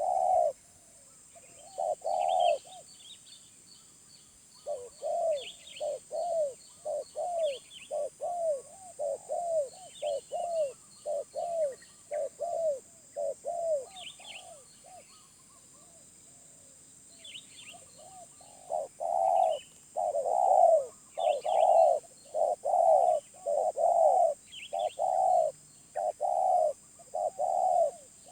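Spotted dove cooing in runs of repeated low coos, pausing for a few seconds in the middle and then coming back louder, while small birds chirp thinly above it.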